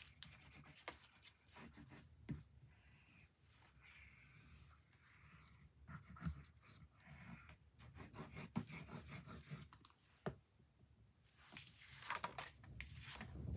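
Faint scratching of a liquid glue bottle's nozzle drawn across card stock as the glue is laid down in lines, with scattered small clicks and taps. Near the end the glued sheet of card is picked up and handled, a short papery rustle.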